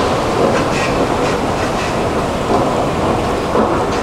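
Stockholm metro train running on the rails: a loud, steady rumble broken by irregular wheel clacks over the track.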